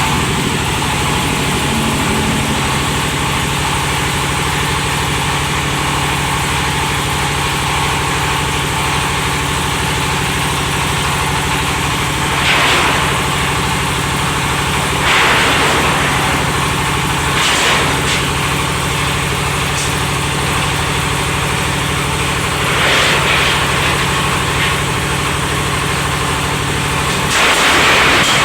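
Oil palm loose-fruit thresher machine running steadily on its engine, with several brief louder rushes of noise over the steady drone.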